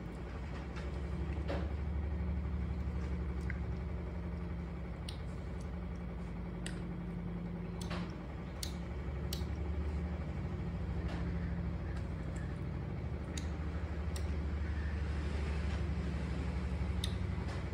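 A steady low engine-like rumble, swelling a little about two seconds in and again later, with scattered light clicks and taps over it.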